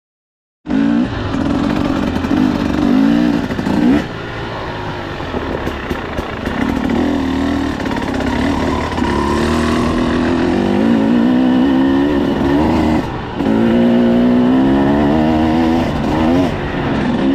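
KTM 300 EXC TBI two-stroke single-cylinder dirt bike engine revving up and down as it is ridden, its pitch rising and falling over and over. It starts about a second in.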